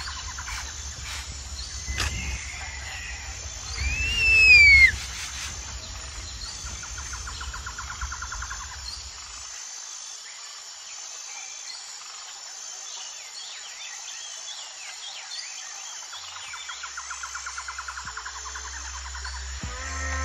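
Wild outdoor ambience of insects chirping in rapid pulsing trains and birds calling. About four seconds in comes one loud call that rises and then falls in pitch. A low rumble stops about halfway through.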